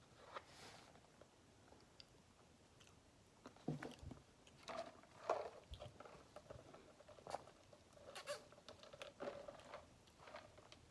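Faint sounds of someone drinking a Diet Coke: sips, swallows and small clicks and rustles from handling the cup, the busiest stretch a few seconds in.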